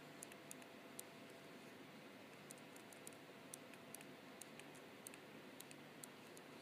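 Faint, irregular light clicks of an S Pen stylus tip tapping and touching down on a Galaxy Note 3's glass screen as characters are handwritten.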